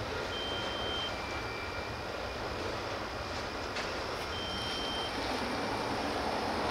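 CSX freight train rolling past with a steady low rumble. Over it, a clear two-note whistle, a high note then a lower one, sounds twice about four seconds apart.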